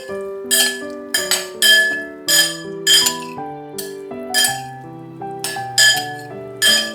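About ten sharp, ringing glass clinks at an uneven pace, each ringing at the same pitches, over soft piano background music.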